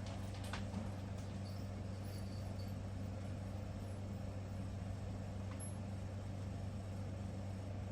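A steady low hum with a couple of faint clicks about half a second in.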